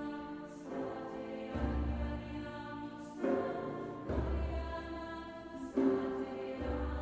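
Background music: sustained choir-like chords that change about every second and a half, each change marked by a low bass note.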